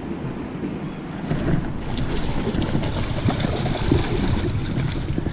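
Wind buffeting the microphone along with irregular water splashing, getting louder about a second in.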